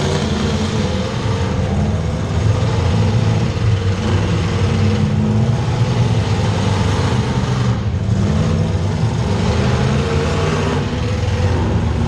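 Demolition derby car engines running loud and revving, their pitch rising and falling, over a steady wash of noise.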